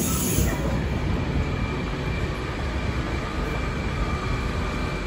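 Steady running noise of a C14 metro train standing at an underground platform with its doors open, with a high hiss that dies away about half a second in.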